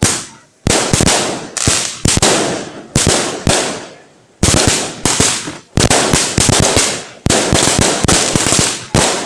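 Fireworks going off in a quick run of crackling bursts, each a sudden cluster of sharp cracks that fades out, about eight bursts with short gaps between them.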